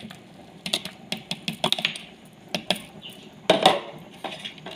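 A metal ladle and a bowl clicking and knocking against a stainless steel cooking pot: scattered sharp clinks, with a louder clatter about three and a half seconds in.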